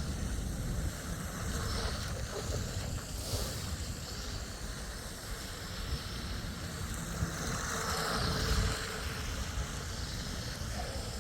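Wind buffeting the microphone: a steady, rumbling rush with no clear motor tone in it.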